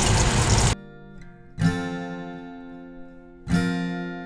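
Dried fish frying in hot oil in a pan, a steady sizzle that cuts off suddenly under a second in. It is followed by background music: an acoustic guitar strumming two chords about two seconds apart, each left to ring and fade.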